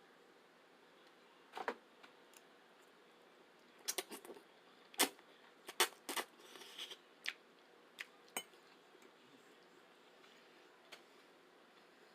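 A fork or other utensil clinking and tapping against a plate or bowl while spaghetti is eaten: about a dozen short, sharp clicks, most of them bunched in the middle, with a brief scrape among them.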